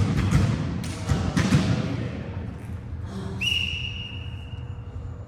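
Shouting and cheering from players and onlookers in a gym hall, with thumps, for the first couple of seconds. Then a single whistle blast starts about three and a half seconds in and is held for about a second and a half.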